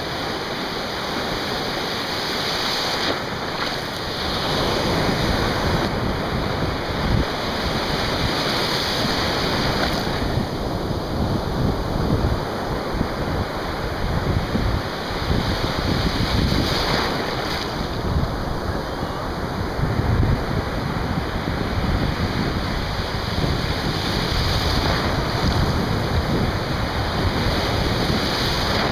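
Ocean surf breaking and washing through shallow water in a continuous rushing roar, rising and falling with each wave. Wind gusts on the microphone add a low rumble.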